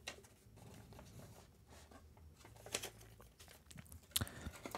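Faint rustling and light taps of paper trading cards and a folded cardboard box being handled, with a sharper tap about four seconds in.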